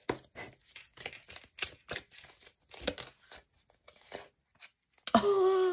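Tarot cards being handled and drawn from the deck: irregular crisp rustling and light card clicks. Near the end, a voice holds one drawn-out vocal sound.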